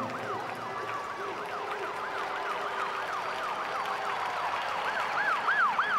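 Siren-like wailing sound effect in the skating programme's music played over the arena sound system: a tone that rises and falls rapidly, about three sweeps a second, growing louder near the end.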